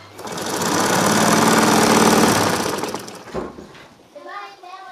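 Black Singer sewing machine, driven by an electric motor, running a burst of straight stitching through a thick quilted bedcover. Its rapid needle strokes and motor hum speed up, hold for about two seconds, then slow and stop a little after three seconds in.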